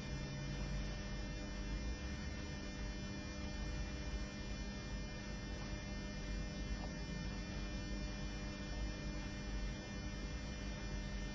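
Steady electrical mains hum with a faint hiss beneath it; nothing else stands out.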